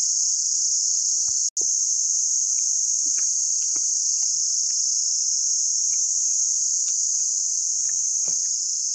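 Steady, high-pitched buzzing chorus of insects that drops out for an instant about one and a half seconds in, with a few faint clicks and knocks beneath it.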